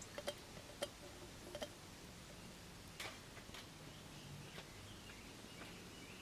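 Small wood fire burning, with faint, irregular sharp crackles and pops from the firewood.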